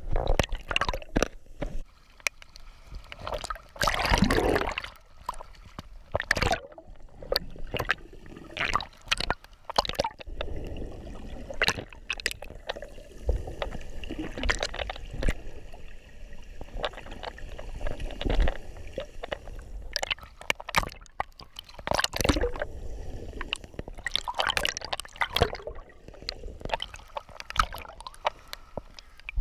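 Water sloshing and gurgling close to the microphone, with irregular splashes and drips.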